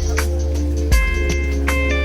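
Background music: a guitar-led instrumental with a steady bass and beat.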